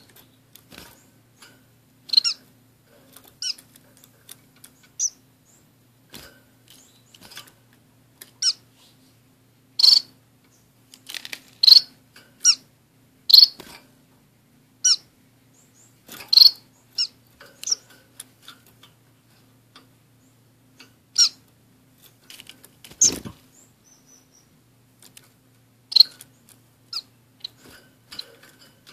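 Small pet finches (orange-cheeked waxbills and a society finch) giving short, high-pitched single chirps, spaced a second or two apart with quiet between. A single thump sounds about two-thirds of the way in.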